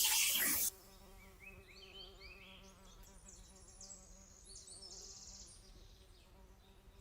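A loud rough scraping noise cuts off suddenly under a second in. After it there is only faint background, with an insect buzzing and short bird chirps.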